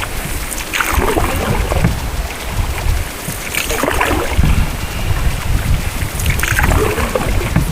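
Paddle strokes splashing about every three seconds as a boat is paddled on a river, with wind rumbling on the microphone.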